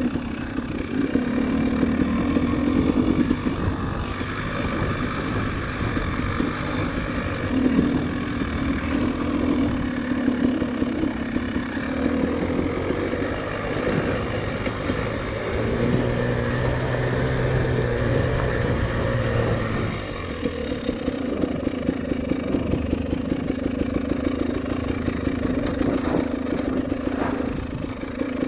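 Enduro motorcycle engine running under changing throttle, its pitch rising and falling as the bike is ridden, with a steadier held note for a few seconds past the middle.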